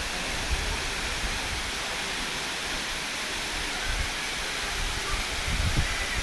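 Waterfall rushing: a steady, even hiss of falling water, with a few brief low thumps about four seconds in and near the end.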